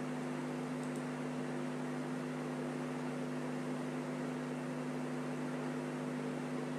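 Steady low electrical hum with an even hiss underneath, unchanging throughout: room tone with no speech.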